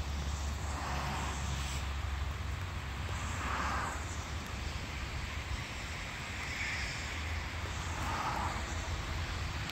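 Roadside outdoor ambience: a steady low rumble with faint, distant traffic swelling and fading a few times.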